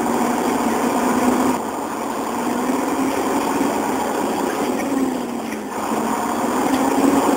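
An engine running steadily, its pitch wavering up and down a few times.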